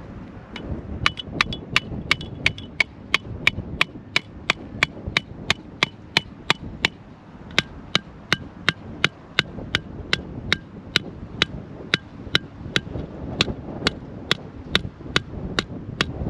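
A hammer repeatedly striking a fishing rod holder to drive it into the dirt, about three sharp blows a second with a brief pause partway through.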